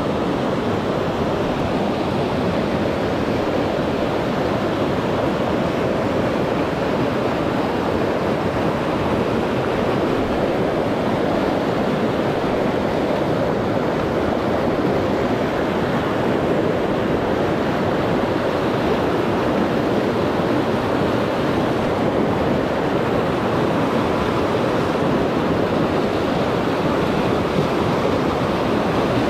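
Glacier-fed mountain river (the South Mowich) rushing at close range: a loud, steady, unbroken rush of water.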